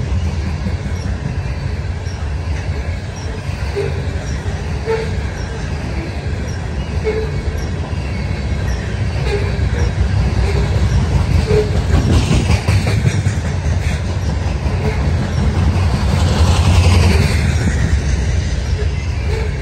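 Loaded coal hopper cars rolling past: a steady rumble of wheels on the rails with regular clicks, and a louder wheel squeal that rises in pitch about twelve seconds in and again near the end.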